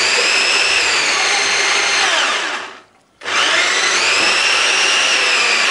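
Mecco 4-in-1 ice crusher blender's chopper attachment running with a high motor whine as it grinds red chillies, shallots and garlic into paste. About halfway through the whine falls away and stops briefly, then the motor spins up and runs again.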